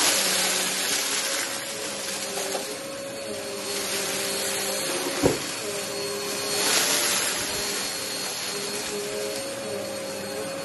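Upright vacuum cleaner running steadily as it is pushed over a rug, sucking up glitter and confetti. Its hiss of rushing air swells louder twice, at the start and about seven seconds in, and a sharp click comes about five seconds in.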